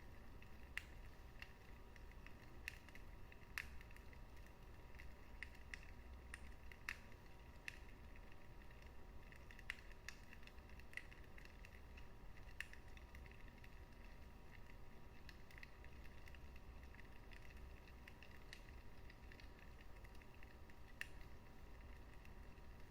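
Wood fire burning in a fireplace, crackling faintly with irregular sharp pops over a low steady rumble.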